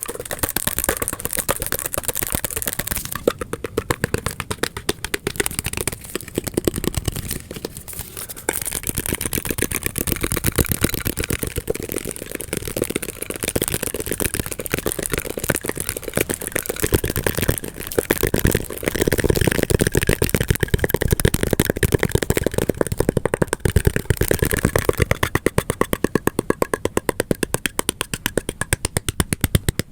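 Very fast, irregular ASMR tapping: a dense, unbroken run of sharp taps, many a second, with uneven spacing.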